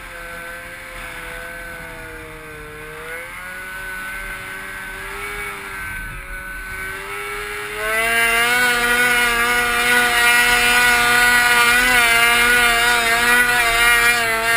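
Arctic Cat mountain snowmobile's two-stroke engine climbing a slope, its pitch rising and dipping at part throttle. About halfway through it opens up to a loud, steady high-rev run.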